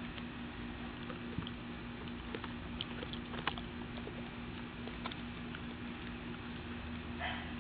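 A young Great Dane chewing and biting into an orange: scattered soft clicks and smacks, the sharpest about three and a half seconds in, over a steady background hum.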